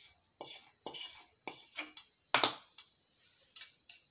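Spatula scraping fried chopped vegetables out of a frying pan into a bowl: a run of short, separate scrapes, the loudest about two and a half seconds in.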